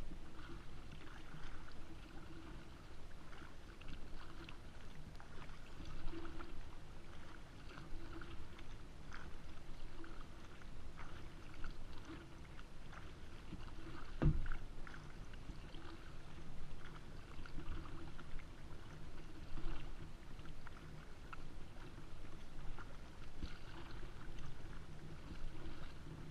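Kayak paddle strokes in the water, a soft splash repeating about once a second, with one sharp knock about halfway through.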